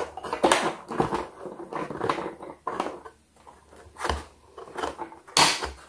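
Hands handling toy packaging while undoing the twist ties that hold the toy to its box: irregular rustling of cardboard and plastic with light knocks, a louder rustle near the end.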